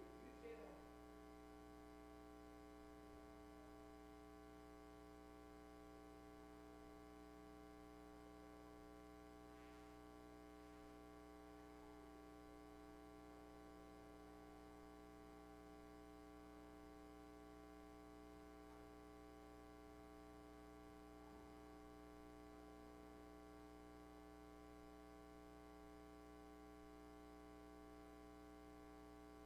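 Near silence: a faint, steady electrical hum in the recording.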